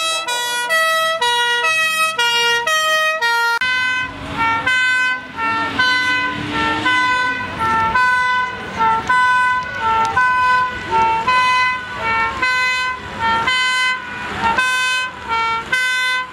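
Vintage fire engines' two-tone horns sounding the alternating two-note 'nee-naw' call. The horn pattern changes about three and a half seconds in as a different horn takes over. A truck engine runs underneath from then on.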